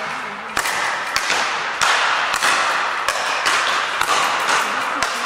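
Speed-ball rally: rackets striking the ball tethered to the pole in quick alternation, a sharp tap roughly every half-second, about nine hits in all, echoing in a large hall.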